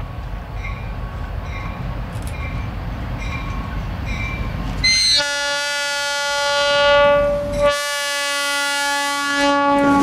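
Approaching Norfolk Southern diesel locomotives rumbling. About halfway through, the lead locomotive's air horn sounds: a long blast, a short jab, then another long blast.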